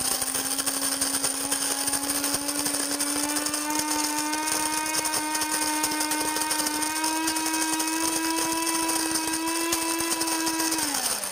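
Cuisinart Supreme Grind electric burr coffee grinder grinding beans on a medium setting: a steady motor whine over a grinding hiss, its pitch creeping slightly upward. Near the end the motor winds down, falling in pitch, as the grinder shuts itself off once the preset amount for four cups is ground.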